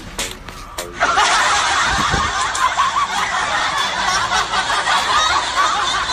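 Many people snickering and laughing together, loud, starting abruptly about a second in: a laugh-track sound effect.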